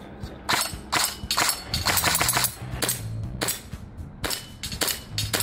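Airsoft guns, a rifle and then a pistol, firing a string of single shots, about ten in all and irregularly spaced, over background music with a steady bass line.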